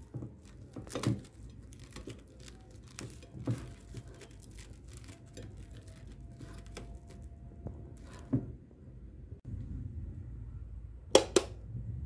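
Plastic cling film over a plate of food crinkling and rustling as the plate is handled, with a few soft knocks and two sharp clicks close together near the end.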